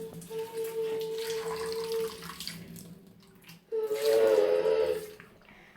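Water running and splashing out of a cut-open, water-filled squishy toy full of Orbeez as it is squeezed. A steady hum-like tone sounds for the first two seconds, and a wavering held tone comes in about four seconds in.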